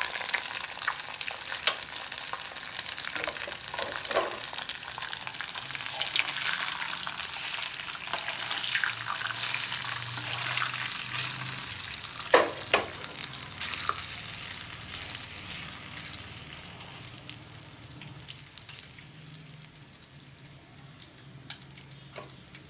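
A tempering of mustard seeds, cumin, lentils, ginger, chillies, pepper and curry leaves sizzling in hot oil, with a few sharp knocks, the loudest about twelve seconds in. The sizzle fades away over the last several seconds.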